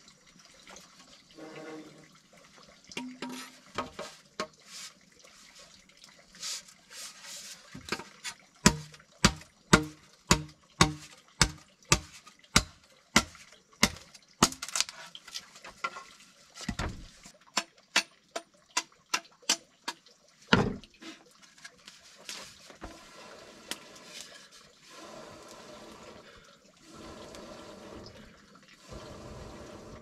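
A run of sharp knocks, about two a second, for some twelve seconds. Then air blown through a bamboo tube onto the burning embers in a log stump, fanning the fire that burns out the hollow of a wooden mortar; it comes as a steady rushing in long breaths with short pauses between them.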